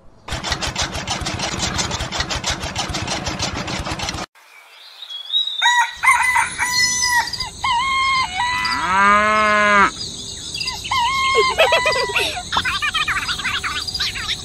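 A miniature chaff cutter's small electric motor switched on and running with a fast, even rattle for about four seconds, then cutting off suddenly. After a short pause, farmyard sound effects follow: chickens clucking, a rooster crowing and birds chirping.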